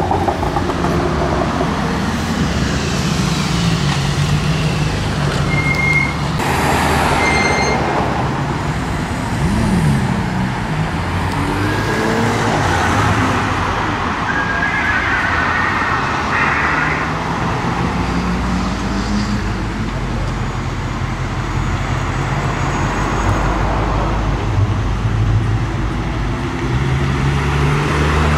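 Car engines running and moving about, their pitch rising and falling several times.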